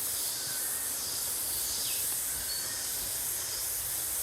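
Chorus of cicadas: a loud, high, hissing drone that swells and fades in waves.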